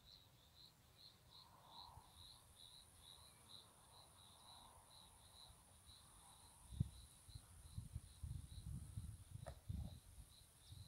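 Crickets chirping faintly and evenly, about three short high chirps a second, over a fainter, steady high insect buzz. Low rumbling thumps of wind on the microphone come in during the second half.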